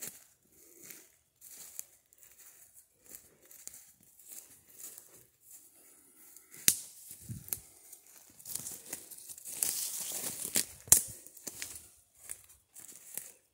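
Footsteps crunching and rustling through dry leaf litter and low undergrowth, an uneven run of crunches with a few sharper cracks in the second half.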